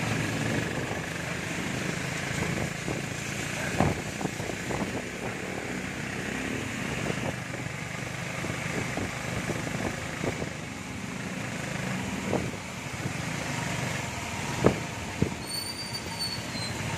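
Heavy rain and traffic on a wet road: a steady hiss of rain and tyres with engines running underneath, broken by a few sharp knocks. A brief high-pitched squeal comes near the end.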